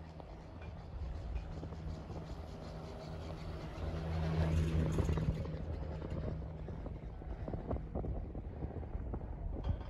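Chairlift running: a steady low hum from the haul rope and tower sheaves, loudest about halfway through, with a few scattered knocks near the end.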